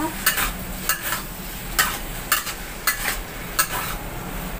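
Spatula scraping and knocking against a steel wok while stir-frying, about two strokes a second, over the steady sizzle of beef and onion frying.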